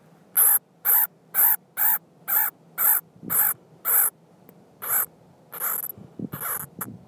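An unidentified animal giving a rapid series of harsh, rasping calls, about two a second, around a dozen in all, the last few longer and more ragged.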